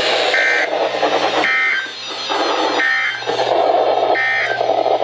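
Weather alert radio beeping for a received severe thunderstorm warning: four short two-tone beeps about every second and a half, over a steady radio hiss.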